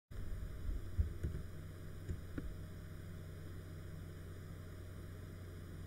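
Open microphone's electrical hum and hiss, cutting in suddenly at the start, with a few soft knocks in the first two and a half seconds.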